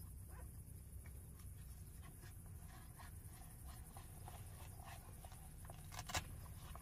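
Faint rustling and scattered light clicks from a person moving in the doorway of a fabric rooftop tent and onto its ladder, with one sharper knock about six seconds in. A low steady rumble sits underneath.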